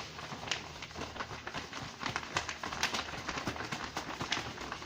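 Irregular small clicks, taps and rustles of items being handled and sorted by hand.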